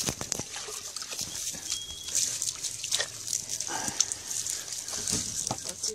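Water poured from a bottle splashing over a husky-pointer mix dog's back and onto the grass, mixed with sounds from the dog itself and a few short clicks.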